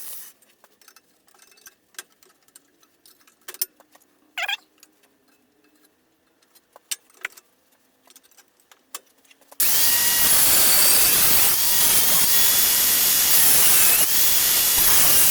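Power tool cutting metal. For most of the first ten seconds there are only faint clicks and taps of handling. Then the tool starts abruptly and runs steadily with a whine that shifts in pitch as it cuts.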